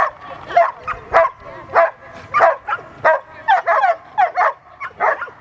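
A dog barking rapidly and repeatedly, about a dozen short, fairly high-pitched barks in quick succession.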